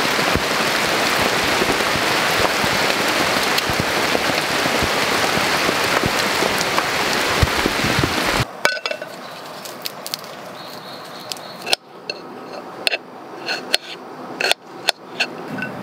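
A loud steady hiss with scattered crackles that cuts off suddenly about eight seconds in. Then a knife chops garlic on the base of an upturned metal pan: sharp, uneven knocks about once a second.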